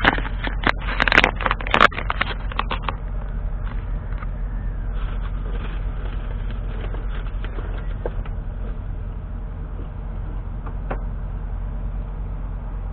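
Smart Roadster's small turbocharged three-cylinder engine, remapped to 115 bhp, running steadily with road noise as the car drives. A cluster of sharp clicks and knocks sounds in the first two seconds or so.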